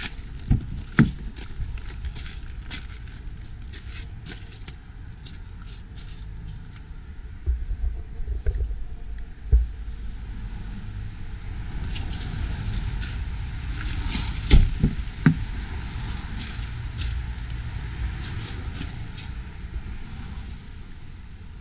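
Low, steady rumble of wind and handling noise on a handheld camera's microphone, with scattered knocks and clicks, the loudest a few in the middle.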